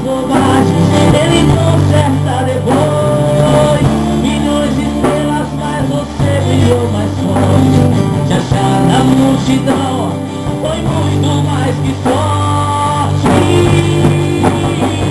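A small band playing live: a man singing over a strummed acoustic guitar and a drum kit, with held sung notes.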